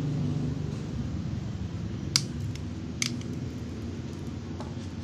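Cutter snipping through a coaxial signal cable: two sharp snips a little under a second apart, with a few lighter ticks, over a steady low hum.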